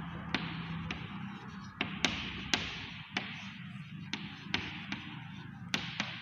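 Chalk writing on a chalkboard: irregular sharp taps as the chalk strikes the board, about two a second, each followed by a short scratchy stroke.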